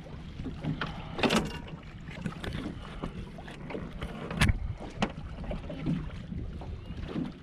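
Steady low rumble of water and wind around a small boat, with rustling branches and several sharp knocks from handling on the boat, the loudest about four and a half seconds in.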